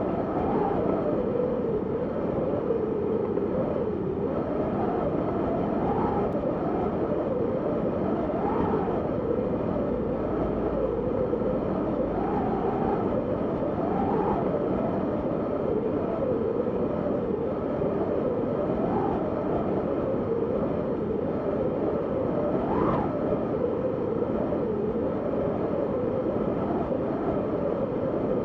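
Wind of a snowstorm blowing steadily, its whistle wavering up and down in pitch, with one sharper gust rising higher late on.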